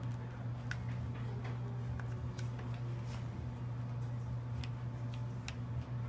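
Light, scattered metal clicks and ticks from small screws and a metal mounting bracket being handled and driven into a laptop hard drive, over a steady low hum.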